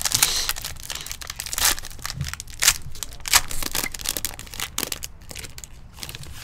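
Foil wrapper of a Topps Tier One baseball card pack crinkling and tearing as it is ripped open by hand, a dense run of sharp crackles.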